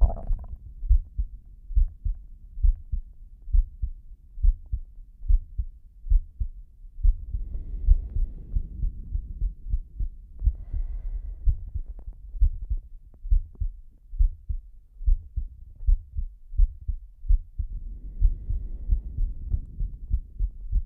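Slow human heartbeat, a steady run of low double thumps (lub-dub). Two long breaths rise over it, about a third of the way in and near the end, with a shorter breath sound around halfway.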